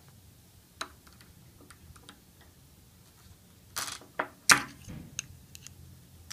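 Scattered light clicks and taps of small hand tools as an O-ring pick pries the inner seal out of a pneumatic actuator lid. The loudest, a sharp click, comes about four and a half seconds in.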